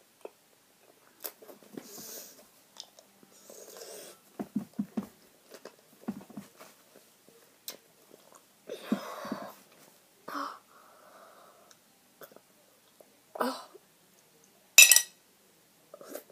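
A boy chewing sour Warheads candy in small bursts, with wheezing, hissing breaths and strained mouth noises as he reacts to the sourness. A short, sharp, loud burst comes near the end.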